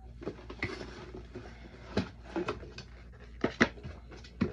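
Handling noises from unboxing: a scatter of sharp knocks and clicks as the packaging and the parts of a label printer are taken out and handled, with light rustling between them.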